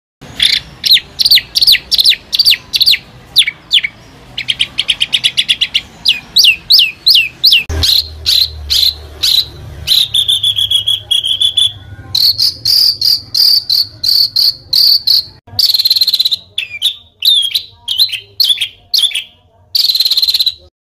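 Songbird song from a training recording: loud, repeated falling whistles, a fast rattling trill about four seconds in, then long buzzy trills, with short breaks between the phrases.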